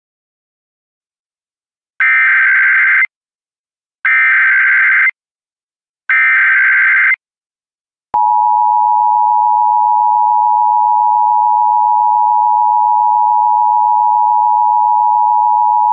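Three one-second Emergency Alert System SAME header data bursts, buzzy warbling tones starting about two seconds in and spaced about two seconds apart. They are followed from about eight seconds in by the steady two-tone EAS attention signal held for about eight seconds, announcing a child abduction emergency (AMBER Alert) broadcast.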